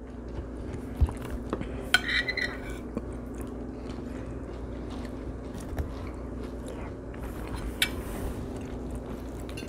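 Close-up mouth sounds of a person chewing food, cheesy grits and fried catfish, with sharp clicks of a metal spoon and fork against a ceramic plate a few times. A steady low hum runs underneath.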